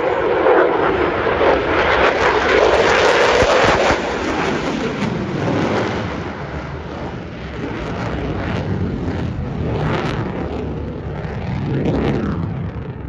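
Loud jet noise from an F-22 Raptor's twin Pratt & Whitney F119 turbofan engines. It is strongest for the first four seconds, then eases off with a shifting pitch, and swells briefly again near the end.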